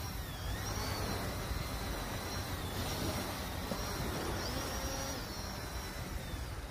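Quadcopter drone's propellers whining close by, the pitch wavering up and down as it hovers low and is caught by hand, over low wind rumble on the microphone.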